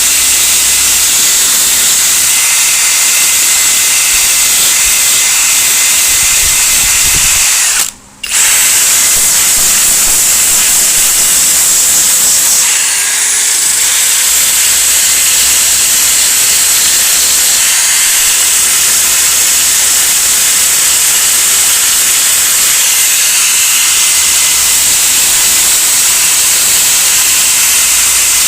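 Wire wheel spun by an electric drill, grinding out cracks in a plastic dash pad. It runs steadily, with a brief stop about eight seconds in.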